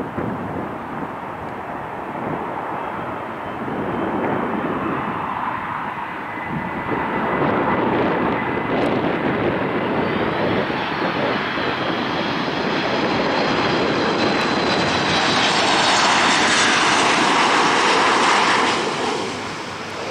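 Boeing 737 MAX 8's CFM LEAP-1B turbofan engines on final approach: a jet rumble with a steady whine, growing louder as the airliner nears. It is loudest near the end, then drops away quickly as the plane passes toward touchdown.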